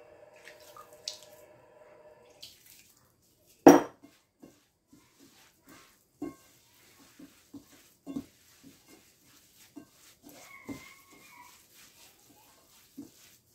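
Hands mixing and pressing damp semolina dough in a ceramic bowl: soft, irregular pats and squeezes, with one sharp knock against the dish a few seconds in. A faint steady hum stops about two seconds in.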